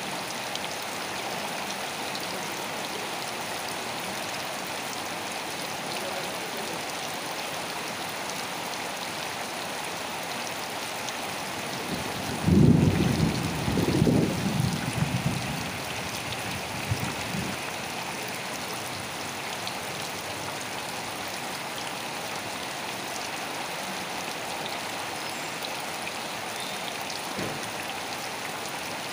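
Steady rain falling, an even hiss of drops. About twelve seconds in, a low rumble swells for a few seconds and fades.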